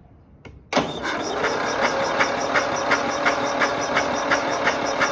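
Wheel Horse lawn tractor's electric starter cranking the engine with the spark plug out and laid against the block for a spark test, starting abruptly about a second in, with a regular sharp tick about three times a second; the engine does not fire.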